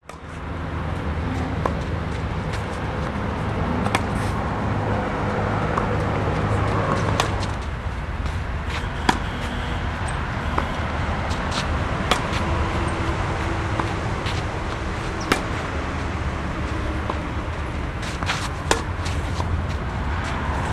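A tennis rally: the ball is struck by rackets back and forth, sharp pops about every one and a half to two seconds, over a steady low rumble.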